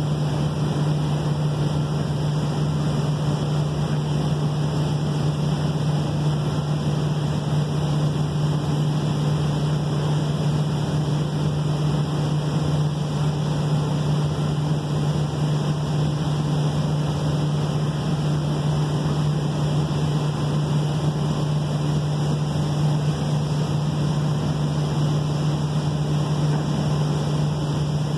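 Ship machinery running with a steady, unchanging low hum over a constant rushing noise.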